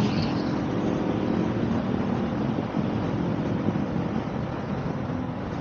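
Motorcycle engine running under way, mixed with steady wind and road noise on a head-mounted camera.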